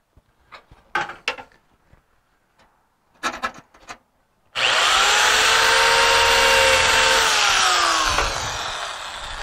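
A few faint taps and clicks of handling, then about halfway through a cordless drill with a pop rivet cutter bit runs for about three and a half seconds, cutting into the sheet steel to find a spot weld. Its whine falls in pitch and fades near the end as the drill winds down.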